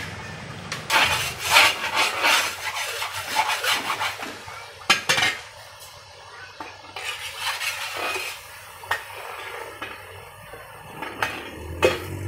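A long metal ladle scraping and clinking against a large metal cooking pot as meat is stirred in hot broth, in irregular bursts of scrapes and knocks.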